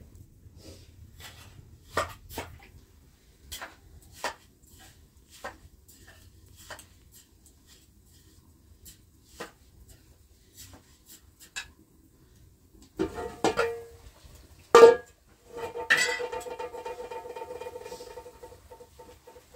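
Metal cookware handled at a hearth: scattered light clicks and clinks, then a clatter of metal pots and bowls with one loud clang, followed by a ringing metal tone that fades over about three seconds.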